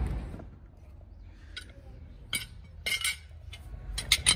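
Several sharp metallic clinks of a steel pipe wrench being fitted against the top nut of a bottle hydraulic jack, scattered at first and then a quick cluster near the end.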